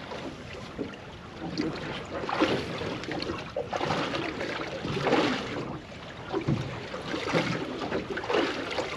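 Water slapping against the hull of a small aluminium boat, in surges every second or so.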